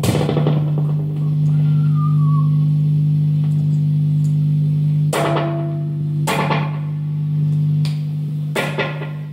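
Electric guitar played through a vintage Echolette valve amplifier: a low note rings on steadily with long sustain, with a sharp picked attack at the start and several more struck in the second half.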